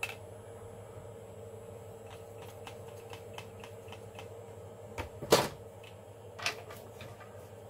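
Handling noise of 3D-printed plastic parts and a glue tube: a run of light clicks, then a louder knock with a brief rustle about five seconds in and another knock about a second later.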